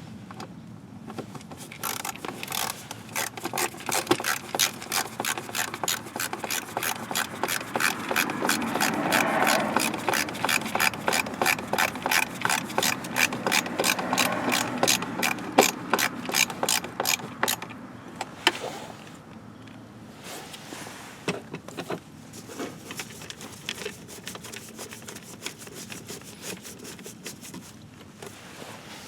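Ratchet wrench clicking in a fast, even run of about four clicks a second, used to turn a fastener. The run stops about eighteen seconds in and is followed by quieter scattered clicks and rubbing.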